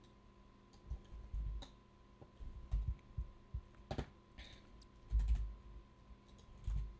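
Faint, scattered clicks of a computer keyboard and mouse, a handful over several seconds, with a few dull low thumps and a faint steady electrical hum underneath.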